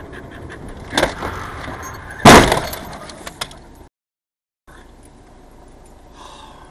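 A car's front corner crashing into the back of a box truck: a sharp knock about a second in, then a loud crunching impact with rattling debris after it. The audio cuts out for under a second, then quieter road noise returns.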